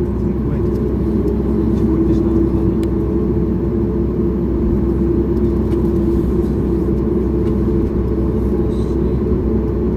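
Steady cabin noise of a taxiing Boeing 737 MAX 8, heard from inside the passenger cabin: the CFM LEAP-1B engines at low taxi power give an even low rumble with a held mid-pitched hum.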